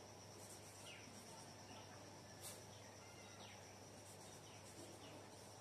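Near silence: a marker squeaking faintly on a whiteboard in a few short strokes as a word is written, over a faint steady high tone.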